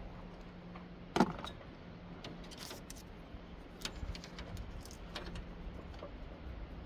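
A sharp knock about a second in as a car battery is set down in the engine bay, followed by light metallic clicks and rattles of wires and clips being handled.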